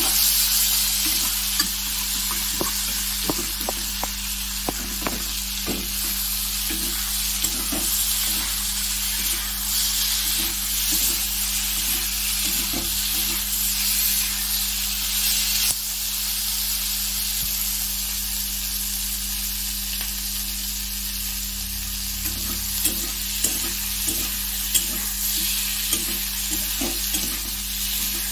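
Potato cubes, onions and green peppers sizzling in oil in a kadai while a spatula stirs them, scraping and tapping against the pan. The taps come in quick runs in the first few seconds and again near the end.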